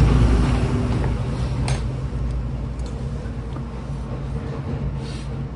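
A vehicle engine running with a steady low hum that is loudest at the start and slowly fades, with a few light clicks of metal parts being handled.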